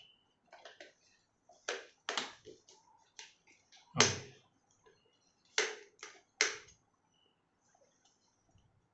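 Plastic parts of an electric kettle being handled and pressed together during reassembly: a string of irregular clicks and knocks, the loudest about four seconds in.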